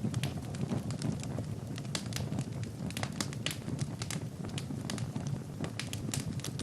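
Fire burning in a fireplace, with irregular sharp crackles and pops, several a second, over a steady low rush of flame.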